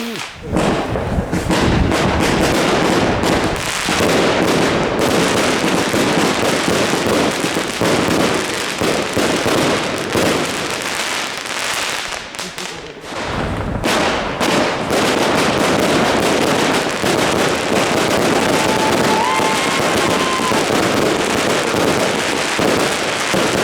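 Evolution Fireworks 'Snowstorm' firework going off: a dense, continuous run of crackling and bangs. It drops off briefly about twelve seconds in, then picks up again and keeps going.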